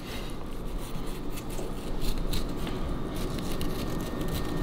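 A knife cutting along the back of a mahi-mahi, slicing through the skin and flesh with soft, scratchy scraping strokes.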